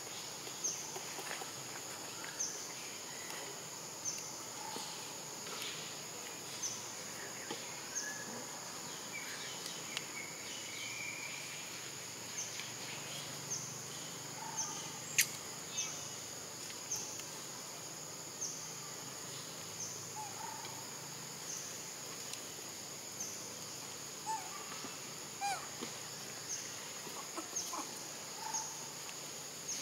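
Steady high-pitched insect drone pulsing about once a second, with scattered short chirps and one sharp click about halfway through.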